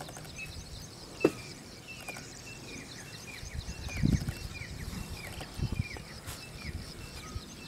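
Francolin (teetar) giving the female call: a long run of short, falling chirps, about three a second. Insects chirr steadily behind it, and there is one sharp click about a second in.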